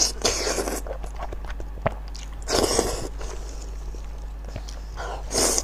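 Close-miked wet eating sounds: biting into and chewing soft pig brain coated in chili sauce. There are three louder wet bursts, at the start, about two and a half seconds in, and near the end, with small clicks between them.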